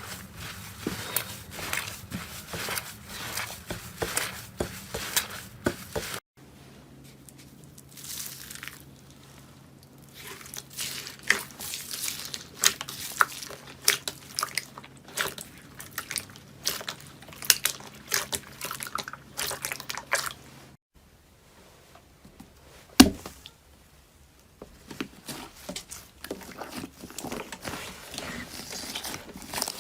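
Slime being squeezed, poked and stretched by hand: rapid small crackling pops and squishes, with one loud sharp pop about two-thirds of the way through. The sound changes abruptly twice as one slime clip gives way to another.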